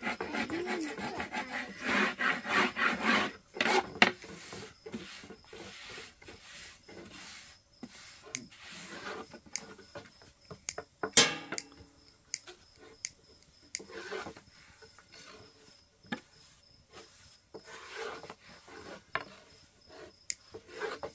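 Wood rubbing and scraping in quick repeated strokes for the first few seconds, then scattered knocks and clicks, with one sharp knock near the middle.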